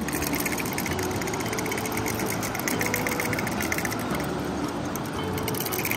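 River water running over stones: a steady rushing with a fine, rapid crackle.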